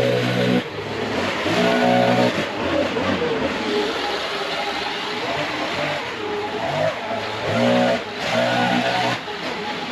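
Gas-powered leaf blower running over a loud rush of air. The engine drops off full throttle and comes back several times, with a lower, unsteady note in the middle stretch.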